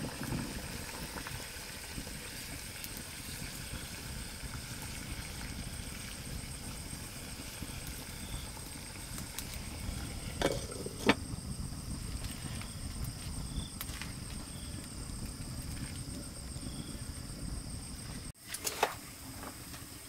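Outdoor ambience: a steady high insect drone over a low rumble, with a couple of sharp knocks about halfway through. The ambience breaks off abruptly near the end, followed by a few more clicks.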